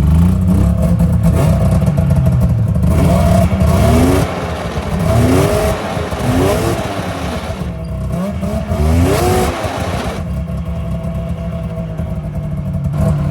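Rebuilt Yamaha Venture snowmobile's three-cylinder two-stroke engine running, its pitch swinging up and down several times between about 3 and 10 seconds in before settling back to a rough idle. The engine won't idle properly and runs on only two cylinders at idle, which the owner puts down to dirty carburettors.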